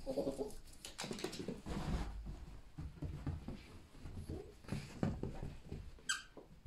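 A Chinese Crested dog moving about: an irregular patter of paws and claws with rustling, and a brief high-pitched squeak about six seconds in.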